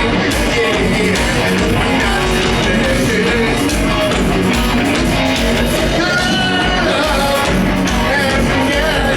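Live hard rock band playing loud and steady, with distorted electric guitar, bass and drums and a lead voice singing over them.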